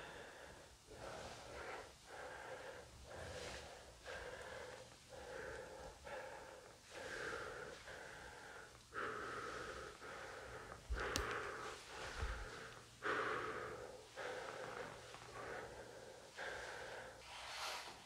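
A person breathing quickly and audibly close to the microphone, a breath about every second. A sharp click and low thumps come about eleven and twelve seconds in.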